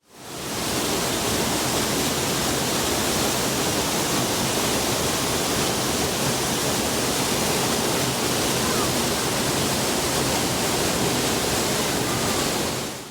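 Waterfall: a steady rush of falling water that fades in at the start and fades out at the end.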